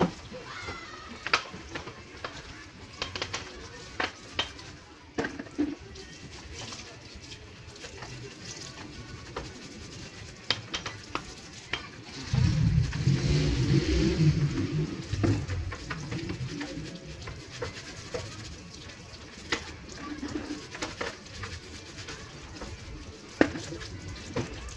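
Motorcycle being washed by hand with water from a plastic bucket: water splashing and scattered clicks and knocks. About halfway through comes a louder rumbling noise lasting about three seconds.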